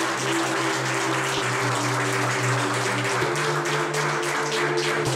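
Audience clapping and applauding over music with sustained chords.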